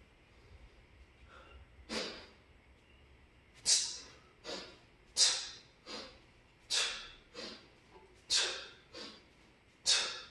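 A man's sharp, forceful breaths in rhythm with two-handed kettlebell swings. From about two seconds in there is a loud breath about every second and a half, each followed by a shorter, quieter one.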